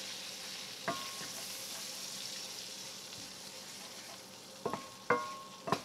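Butter-and-flour roux sizzling steadily in a non-stick frying pan as a wooden spatula stirs it. The spatula knocks against the pan once about a second in and three times near the end, the pan ringing briefly after some of the knocks.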